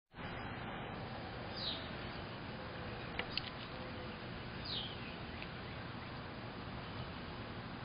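Steady outdoor hiss with two short, falling bird chirps, one about a second and a half in and one near five seconds in. Two sharp clicks come close together between them.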